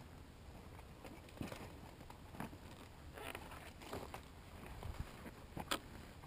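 Faint footsteps on dry corn stubble, with scattered light clicks and knocks.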